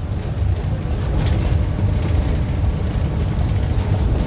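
Steady low rumble of engine and road noise heard from inside a moving road vehicle's cabin.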